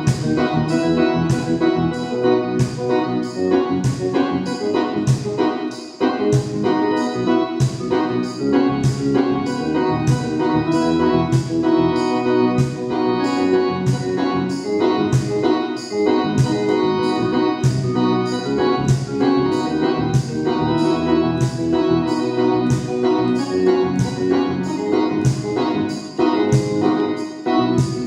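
Live music played on stage: sustained keyboard chords over a steady beat of sharp, bright strikes.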